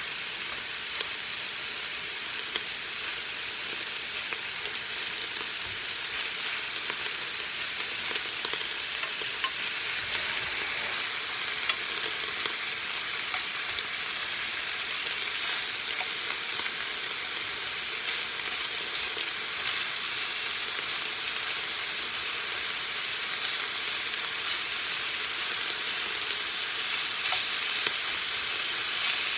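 Bite-size pieces of rib eye sizzling steadily in a hot skillet, with a few sharp clicks of metal tongs against the pan as the meat is turned.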